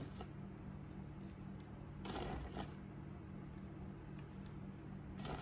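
Small dog treats being pushed into a red rubber treat ball by hand, giving two short scraping, rustling handling sounds, one about two seconds in and one near the end, over a steady low hum.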